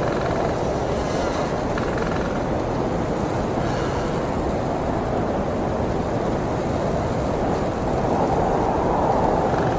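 Steady wind rushing over the microphone, a low rumbling noise that swells slightly near the end, with faint voices now and then.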